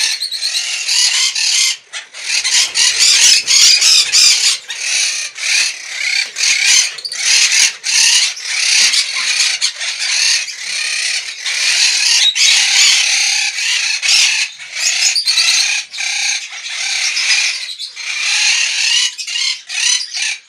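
A group of monk parakeets (quaker parrots) calling without let-up, a dense, high-pitched chatter of squawks and screeches with only a few brief breaks.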